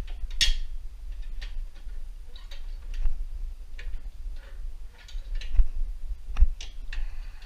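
Hi-Lift jack being worked to lower a vehicle a notch at a time: sharp clicks of the climbing pins and handle, about one a second at uneven spacing, over a low steady rumble.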